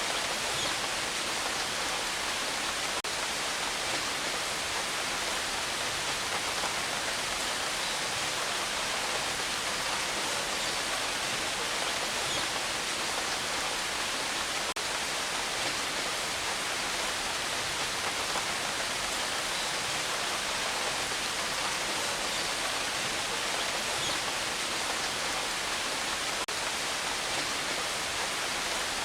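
Steady rain, an even unbroken hiss with no thunder.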